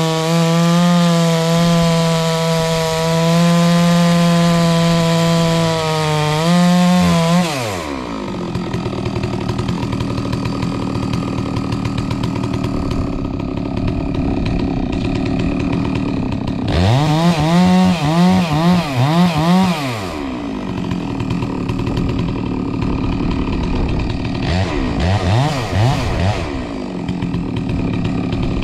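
Chainsaw running at full throttle through a log cut, then dropping sharply to idle about seven seconds in. It idles, is revved in several quick blips midway, and gives a few shorter blips near the end.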